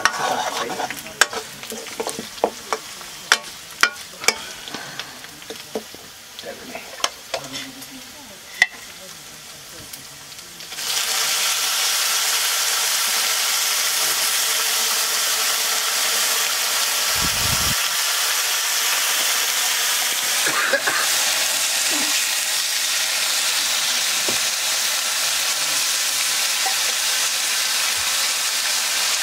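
A metal ladle knocking and scraping against a wok in sharp separate clicks, then about eleven seconds in a loud, steady sizzle starts as chunks of pork fry in hot fat in the wok.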